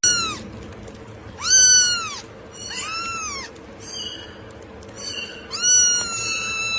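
A cat meowing high-pitched, about five times, each meow rising and then falling in pitch; the one near the end is the longest.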